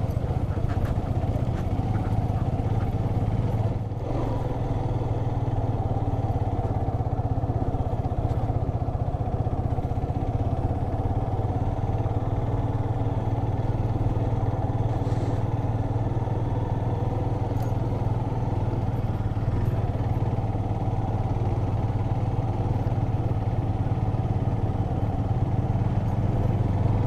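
A vehicle's engine running steadily at an even pace while under way on a rough track, with a brief dip about four seconds in.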